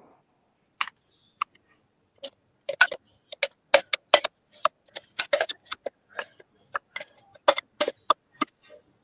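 Irregular clicks and knocks of a wooden spatula scraping and tapping inside a stainless steel blender jug, and the jug knocking on the pan, as thick blended chili paste is emptied out. The knocks are sparse at first and come thick and fast from about three seconds in.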